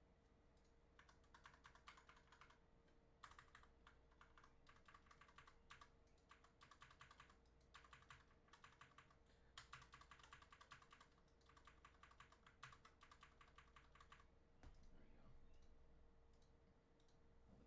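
Faint typing on a mechanical keyboard, rapid key clicks in several bursts of a second or two each, testing that the keys work; the typing stops a few seconds before the end. A faint steady hum lies underneath.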